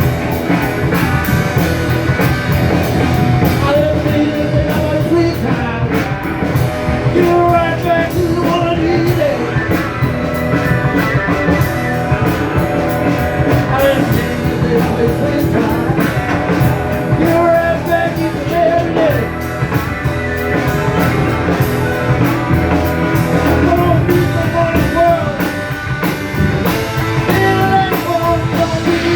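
Rock band playing with guitar and drum kit, with singing.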